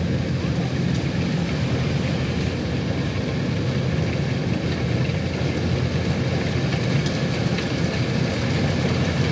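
Kubota DC-105X combine harvester's diesel engine and threshing gear running steadily while harvesting rice, an even low drone.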